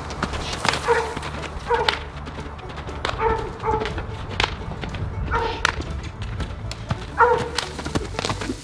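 A dog barking: about seven short barks at uneven gaps. Under them come the soft thuds of a young horse's hooves loping on the dirt.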